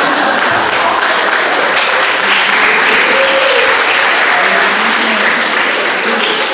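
Theatre audience applauding: a steady, loud wash of clapping that begins to die away near the end.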